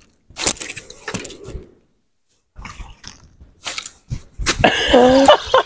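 Scattered clicks, knocks and rustling from handling gear in a small boat, then about four and a half seconds in a man's drawn-out vocal exclamation with a wavering pitch.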